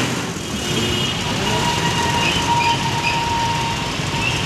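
A heavy container truck rolls through deep floodwater, its tyres churning and sloshing the water over a steady heavy-vehicle rumble. A thin, steady squeal sets in about a second in and holds.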